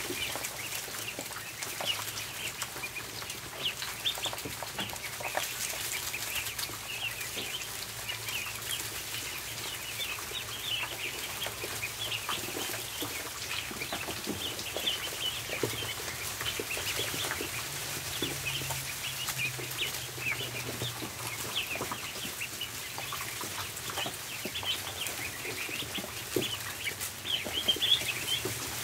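A flock of ducklings peeping without pause, many short high chirps overlapping, over a faint low steady hum.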